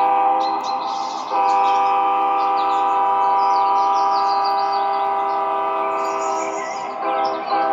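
Model train's onboard sound system sounding a multi-tone train horn in long blasts: one ends about half a second in, a longer one runs from just after a second to about seven seconds, and a short blast comes near the end. Birds chirp faintly behind it.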